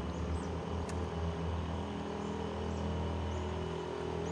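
Electric trolling motor of a small boat running with a steady low hum. A few faint short high chirps sound over it.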